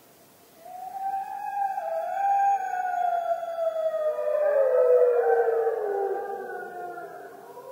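A pack of wolves howling in chorus: several long, wavering howls overlap, beginning about half a second in. One voice slides down in pitch through the middle, where the chorus is loudest.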